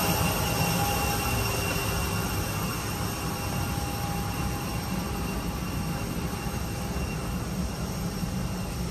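Steady low rumble and rush of air inside a parked Airbus A320 cabin during boarding, the cabin air-conditioning running, with a faint steady whine over it.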